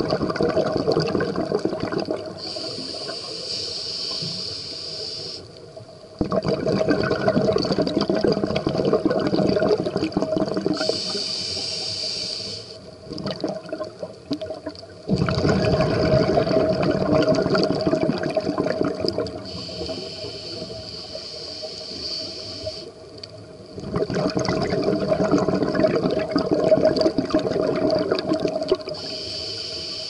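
A scuba diver breathing through a regulator underwater, in a slow, even rhythm: a hiss of inhaled air, then a longer burble of exhaled bubbles, about four breaths.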